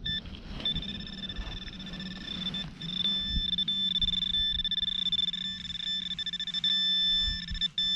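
Metal detector giving a steady high-pitched tone with a low hum beneath, the tone getting louder from about three seconds in as the coil sweeps over a buried metal target.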